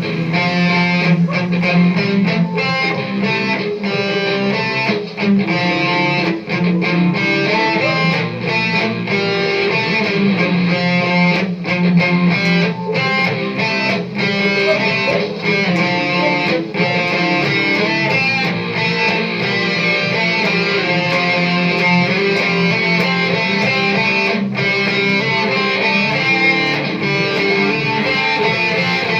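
Guitar played through a Marshall amplifier over an A8 wireless transmitter, chords strummed and notes picked in a continuous song passage.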